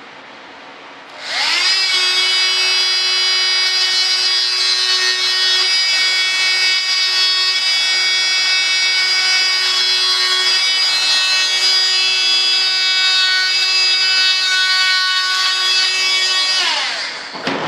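Small handheld power cutting tool spinning up about a second in, running with a steady high-pitched whine as it cuts the part, and winding down just before the end.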